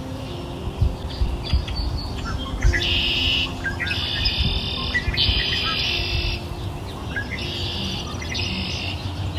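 Birdsong over soft, sustained background music: four bursts of rapid high twittering, each about a second long, the first about three seconds in.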